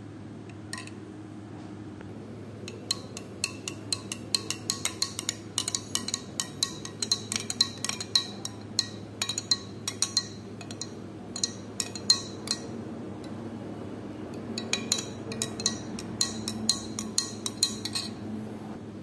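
Steel spoon stirring mango juice in a glass tumbler, clinking against the glass several times a second. The clinking comes in two runs with a pause of about two seconds between them.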